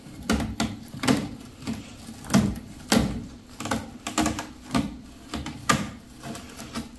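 A cat's claws raking down a sisal-wrapped scratching post, a series of short scratching strokes roughly every half second to a second.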